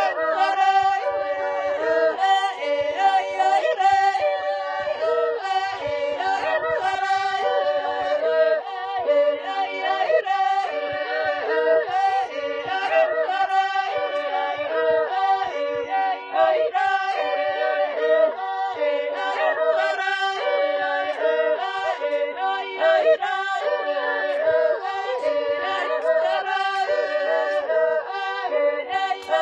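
Several voices singing a cappella in close harmony, in steady sung phrases.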